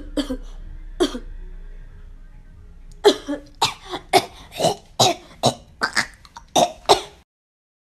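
A young woman's deliberately exaggerated fake coughing: a few single coughs in the first second, then a harder, rapid fit of about a dozen coughs from about three seconds in, which stops abruptly about seven seconds in.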